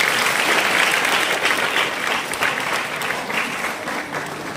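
Audience applauding, with the clapping growing weaker over the last second or two.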